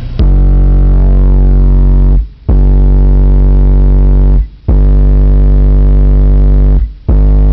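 Pioneer 12-inch car subwoofers, driven by a Brutus 1608D amplifier, playing a very loud steady low test tone around 50 Hz, the range where the system peaks. The tone drops out briefly three times and comes back each time.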